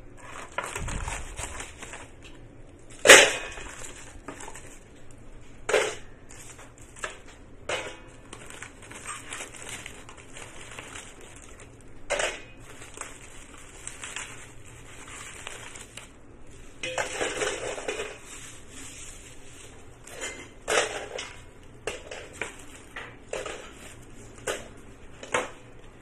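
Dried bird's nests being handled and put into a stainless steel pot: light crackling and rustling with scattered clicks and knocks, the loudest a sharp knock about three seconds in.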